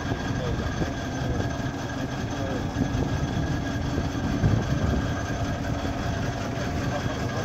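Water-well drilling rig's engine running steadily, a continuous low mechanical sound with no breaks.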